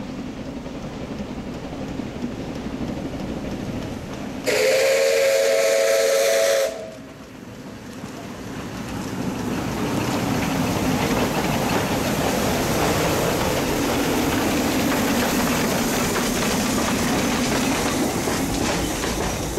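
C2-class narrow-gauge steam locomotive sounds its steam whistle once, a chord of several tones held for about two seconds. About a second later a loud, steady hiss of steam and running noise builds as the engine moves close by.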